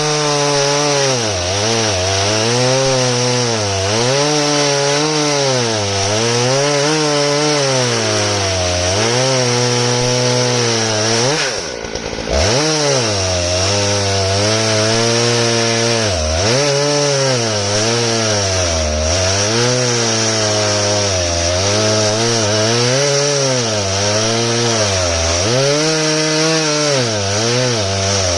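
Stihl MS661 two-stroke chainsaw on a chainsaw mill, cutting through elm at high revs. Its pitch rises and falls every couple of seconds as the long bar bogs under load and recovers, with a brief drop in revs about twelve seconds in.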